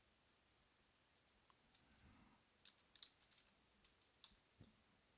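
Near silence with faint, scattered clicks of a stylus tapping on a tablet screen while writing.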